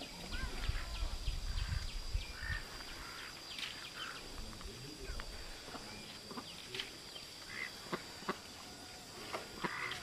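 Farmyard ambience: a steady high insect drone, with scattered short calls from chickens and birds. A low rumble sits under it for the first two and a half seconds.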